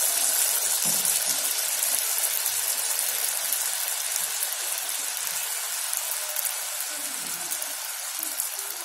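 A malpua of wheat-flour, curd and sugar batter deep-frying in hot ghee in a kadai, just after the batter was poured in. It gives a steady sizzle that slowly fades.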